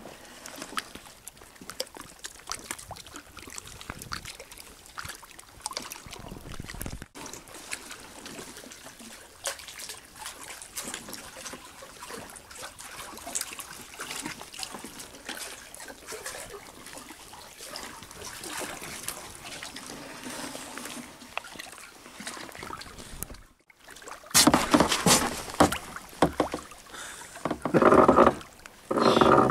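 Kayak paddle strokes: the blades dip into the lake with small splashes and drips, and water laps against the hull. Near the end come a few much louder bursts of noise close to the microphone.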